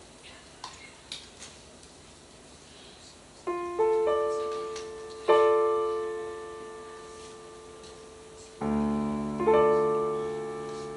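Digital stage piano starting the introduction to a song: after a few faint clicks and rustles, a rolled chord comes in about three and a half seconds in, followed by a few more sustained chords that ring and slowly fade.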